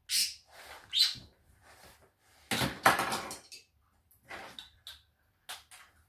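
Budgerigar chirping and chattering in a series of short calls, the loudest and longest about halfway through.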